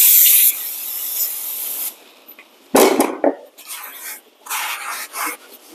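Aerosol brake cleaner hissing as it is sprayed onto a new brake rotor. A loud spray at the start tails off over about two seconds, and several shorter sprays follow in the second half. A sudden loud noise comes about three seconds in.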